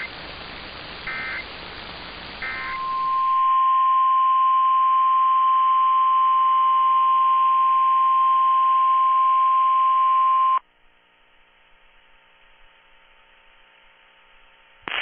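Three short electronic data bursts about a second and a half apart over radio hiss, the end-of-message signal of an Emergency Alert System broadcast. Then the NOAA Weather Radio 1050 Hz warning alarm tone sounds, one steady loud tone for about eight seconds, and cuts off sharply to a faint hum.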